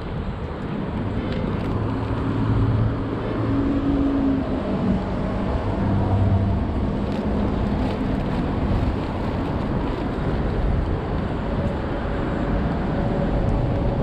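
Road traffic: passing cars' engines and tyres as a steady rumble, with an engine hum that swells a few seconds in.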